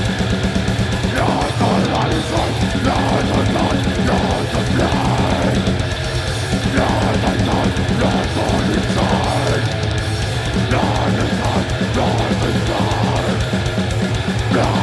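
Death metal band playing live: heavily distorted electric guitars and bass grinding out a low riff over fast, dense drumming.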